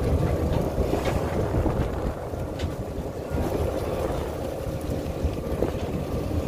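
Ferry's engines droning low and steady, heard from on deck, with wind buffeting the microphone.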